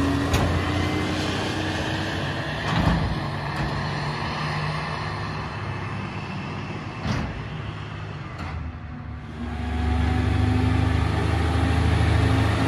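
Peterbilt 348 rear-load garbage truck's engine running, fading for most of the stretch and then swelling back louder about three-quarters of the way through. Two short knocks stand out along the way.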